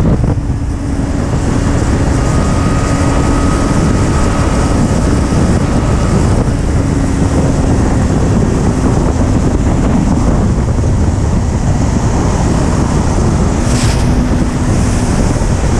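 Sport motorcycle riding at speed: heavy wind rushing over the microphone, with the engine running underneath at a mostly steady note. Loudness dips briefly just after the start, and there is a short hiss near the end.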